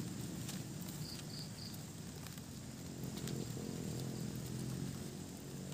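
Outdoor hillside ambience with insects chirping: three short, high chirps about a second in, over a constant low rumble, with a few light clicks of footsteps on the trail.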